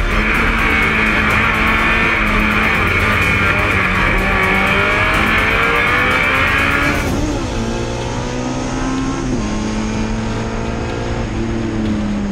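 Racing car engine under hard acceleration, its pitch climbing in long sweeps through the gears and dropping back at each shift. A dense rush of road and wind noise sits over it for the first seven seconds or so, then cuts off.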